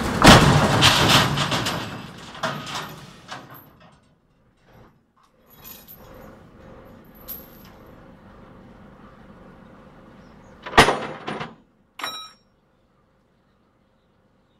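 An overturned ten-wheel lorry crashes down onto its wheels as it is pulled upright, with rattling and clattering that die away over the next few seconds. Two short sharp knocks follow near the end.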